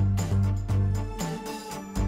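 Background music with a steady beat and heavy bass notes.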